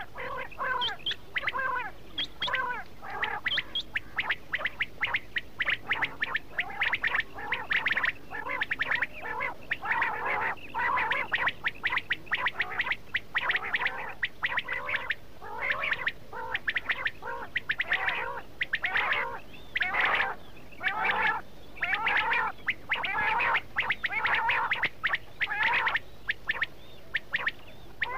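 Quail calling: a dense, rapid run of chirping calls with many notes overlapping, as from several birds at once.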